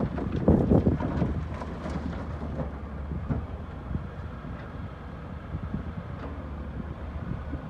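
Shale rock tipped from a Caterpillar 330C excavator bucket crashing and clattering into a steel dump truck bed, loudest about half a second to a second in, followed by a few scattered knocks. A steady low diesel engine drone runs under it.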